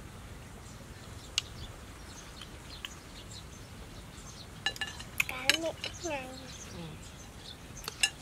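Metal spoons clinking against ceramic bowls during eating: a few single clinks, then a quick run of clinks about five seconds in and two more near the end.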